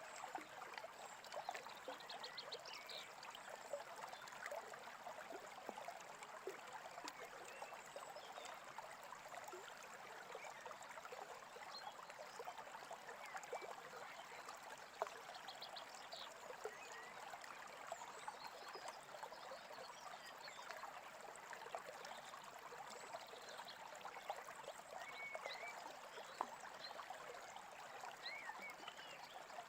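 Small stream babbling steadily, with a few faint, short bird chirps now and then.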